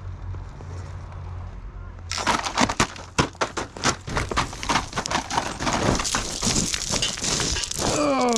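Axial Early Bronco RC crawler on RC4WD Attitude M/T tires working over rocks: a steady low hum, then from about two seconds in, dense irregular crunching and clattering of tires and stones. A short falling tone comes right at the end.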